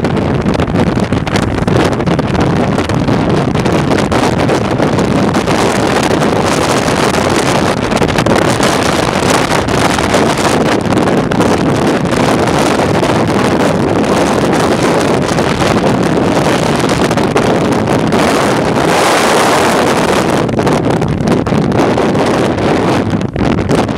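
Heavy wind rushing over the microphone of a camera on a moving motorcycle at road speed, with the motorcycle's running underneath. It gets a little louder and hissier about three-quarters of the way through.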